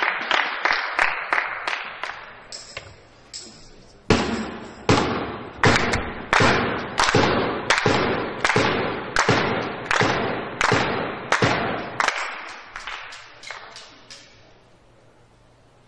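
Steady rhythmic beating by spectators in a large echoing hall: quick strikes of about three a second at first, then after a short pause slower, heavier strikes of about one and a half a second for some eight seconds, dying away near the end.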